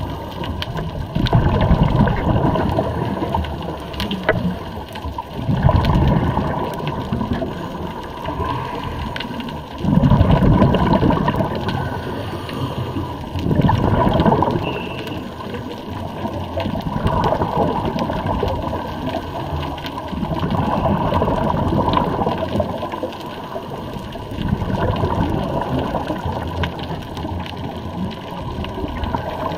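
Scuba diver breathing through a regulator underwater: a bubbly rush of exhaled air about every four seconds over a steady watery hiss.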